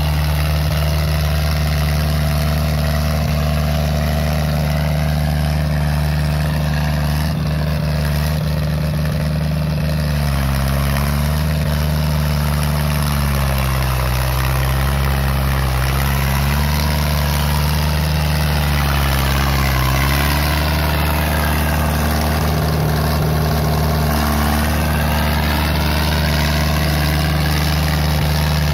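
New Holland TD80 tractor's diesel engine running steadily, its note sagging and recovering twice about halfway through.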